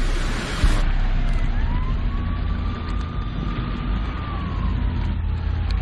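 An emergency-vehicle siren wailing once, rising slowly about two seconds in, holding, then falling away near the end, over the steady low rumble of a car driving.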